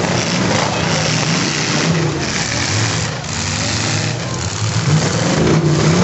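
Several demolition derby cars' engines running and revving loudly together, rising and falling in pitch.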